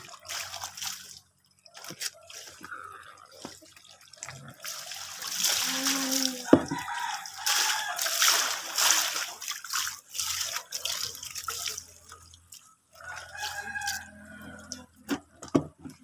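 Laundry being rinsed by hand in a basin of soapy water: water splashing and sloshing as the clothes are worked and lifted, in spells that are loudest through the middle.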